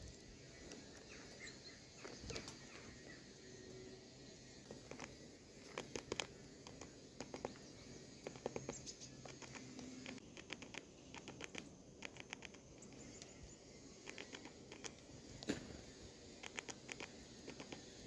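Great tits pecking and hopping in loose grain on a wooden feeder tray: runs of quick light taps and clicks, the busiest about six seconds in and again near the end.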